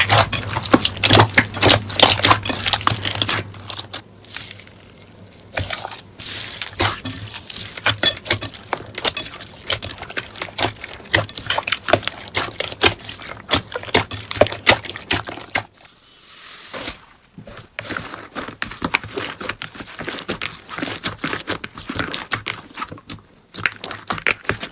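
Slime being squeezed and pressed by hand, giving dense, irregular crackles and small pops with a few brief pauses.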